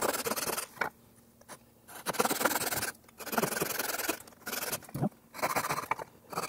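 Handsaw cutting through a wooden workpiece on a bench hook, the last cuts of a hand-sawn tenon, in several short runs of saw strokes separated by brief pauses.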